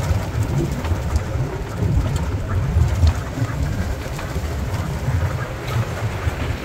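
Open-sided safari jeep driving along a dirt forest track: a steady low, uneven rumble of engine and rough road, with the open air of the moving vehicle buffeting the microphone.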